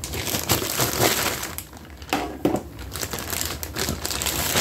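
Irregular crinkling and rustling handling noise, with a scatter of sharp clicks, densest a little after two seconds in.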